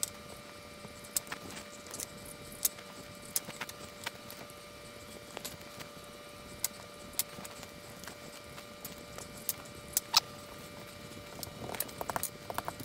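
Scattered sharp clicks and taps of a kitchen knife and hands working pie dough strips on a tiled countertop, over a steady faint hum. Near the end, a denser run of rubbing and knocking as a wooden rolling pin rolls dough on the tile.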